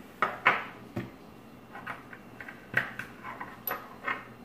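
Small glass essential-oil bottles and their caps clicking and knocking as they are capped, set down on the table and picked up: a string of about ten short clicks, the loudest about half a second and almost three seconds in.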